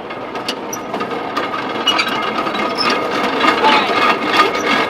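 Rope being twisted on a hand-worked rope-making device: a continuous rubbing of rope and wood with many small clicks, growing louder towards the end.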